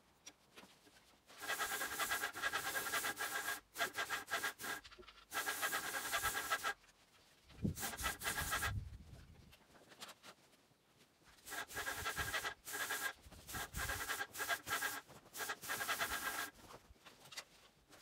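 Graco airless paint sprayer's gun spraying paint onto wooden siding in bursts of a few seconds, a hiss with a steady high whine through it, stopping and starting again several times.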